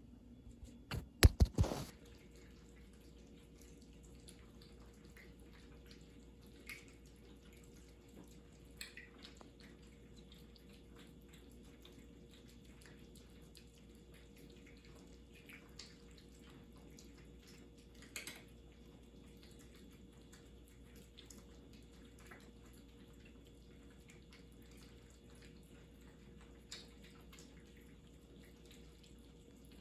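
Cats eating: sparse soft wet clicks and smacks of chewing every few seconds, with a short, loud cluster of knocks about a second in.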